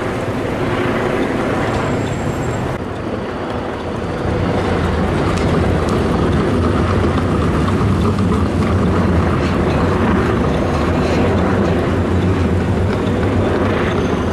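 A city tram passing close by: a steady low hum with the noise of its wheels on the rails, louder from about four seconds in, over street traffic.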